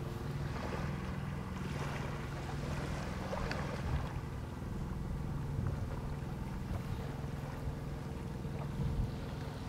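A boat engine idling with a steady low hum, with wind on the microphone and a couple of faint knocks.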